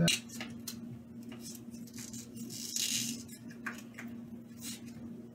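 Small clicks and scratching of a pry tool working under a glued-in smartphone battery and its ribbon cable, with a brief scrape about halfway through.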